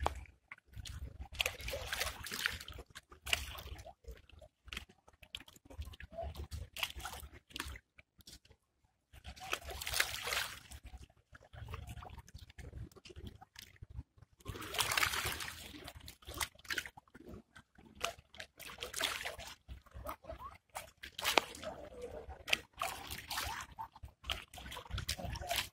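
Small waves lapping and sloshing against shoreline rocks in irregular washes.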